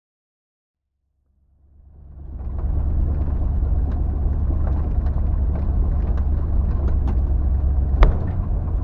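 Silence, then from about two seconds in a 1977 Jeep Cherokee driving a rough dirt track fades in: steady low engine and road rumble with small rattles and clicks, and one sharp knock near the end.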